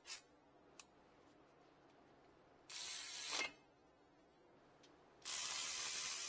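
Cordless electric ratchet running in two short bursts, the second longer, as it tightens the front brake caliper bolts during reassembly; the first burst ends with a falling whine as the motor stops.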